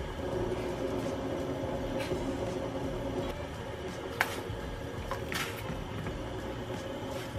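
Steady hum of a kitchen fan running over a pot of simmering water, with a sharp metallic click about four seconds in as steel tongs knock against the stainless pot.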